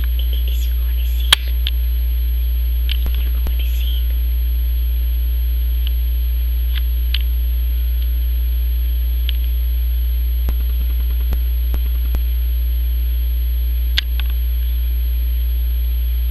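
Steady low electrical hum, with a few faint clicks and ticks scattered over it; a sharper click comes about a second and a half in and another near the end.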